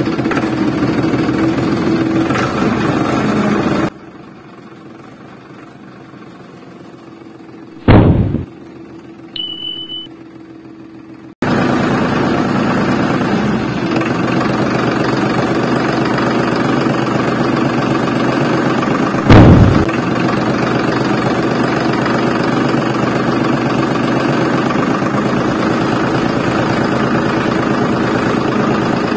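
A motor running steadily, cutting out abruptly for several seconds partway through and then cutting back in. Two sudden loud bangs stand out, one in the quiet stretch and one later in the running.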